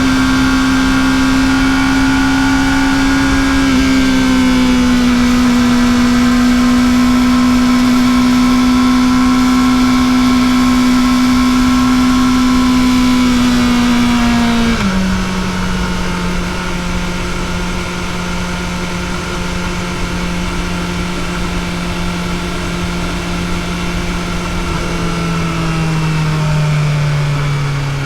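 Kawasaki ZX-4RR's 399 cc inline-four engine running on its stock exhaust at steady high revs under way. The engine note holds high, drops sharply about halfway through as the sound gets a little quieter, and steps down again near the end.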